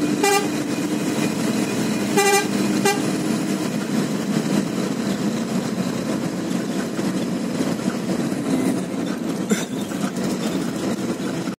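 Steady engine and road noise of a truck driving on a highway, heard from inside the cab. A vehicle horn toots three short times in the first three seconds.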